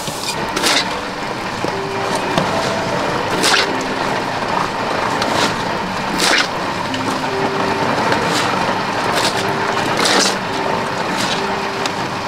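A steel shovel scraping and scooping through a heap of wet concrete, with about eight sharp gritty strokes a second or two apart over a steady grinding noise.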